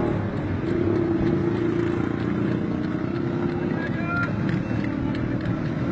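Street traffic noise, led by a motor vehicle engine running steadily, with indistinct voices in the background.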